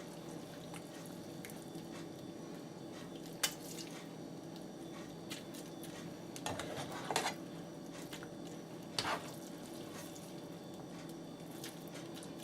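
Utensils scraping and clinking now and then against a pan and plate as saucy noodles are served, with a few soft squishy sounds from the noodles.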